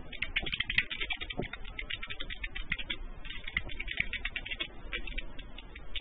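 Computer keyboard typing heard down a telephone line: a quick, uneven patter of light clicks with no highs, as a call-centre agent types up notes on the call.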